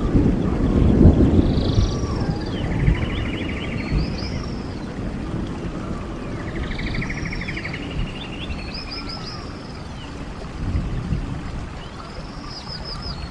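Flowing stream water rushing with a low, uneven rumble that eases off a little. Over it a songbird repeats a song of swooping whistled notes and a fast trill, about every five seconds.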